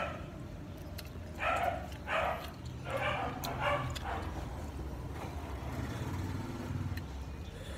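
A dog barking several times in quick succession in the first few seconds, then stopping, over a steady low hum.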